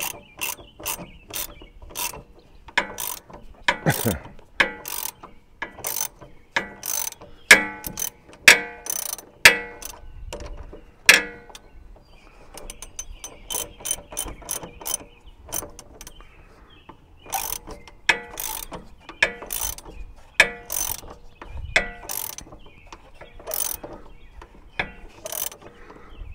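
Socket ratchet wrench clicking as it runs a nut onto a lawn tractor's tie-rod end, in irregular runs of sharp clicks, at times several a second, thinning out for a few seconds around the middle.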